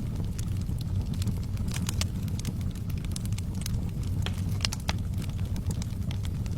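Wood fire burning in a fireplace: a steady low rumble of flame with frequent sharp, irregular crackles and pops.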